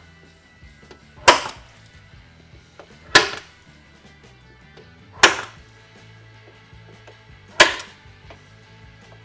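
Center punch striking metal four times, about two seconds apart, each a sharp crack: punching marks for the bolt holes to be drilled.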